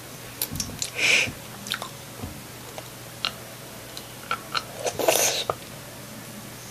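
Mouth noises of someone sucking on a hard-candy lollipop: small clicks of the candy against the teeth and lips, with two louder, longer sounds, one about a second in and one about five seconds in.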